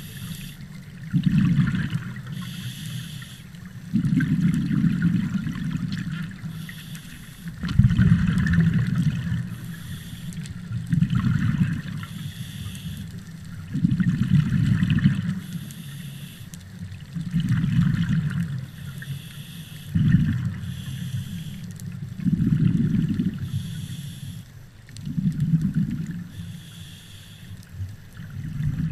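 Scuba diver breathing through a regulator underwater: a hissing inhale alternates with a gurgling rush of exhaled bubbles, about one breath every three seconds.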